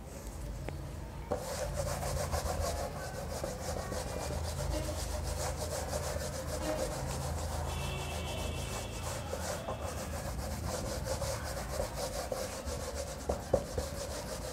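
A hand rubbing and brushing back and forth across a sheet of paper in a continuous scratchy rub of quick strokes that starts about a second in. A few light knocks come near the end.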